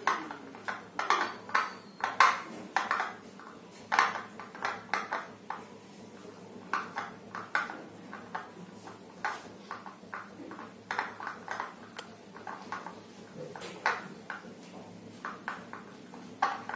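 A metal utensil clinking and scraping against a plate as it stirs a sticky noodle-and-egg dough, in irregular taps a few times a second.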